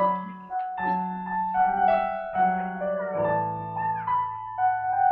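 Piano playing a slow melody over held chords, a new note struck about every second and left to ring.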